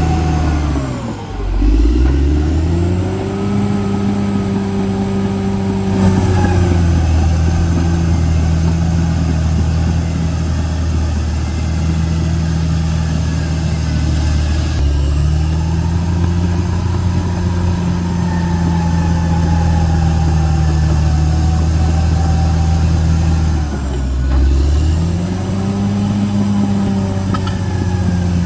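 CAT D6R XL bulldozer's diesel engine running hard while working, its pitch sagging sharply about a second in and again near the end as it lugs under load, then picking back up and holding steady.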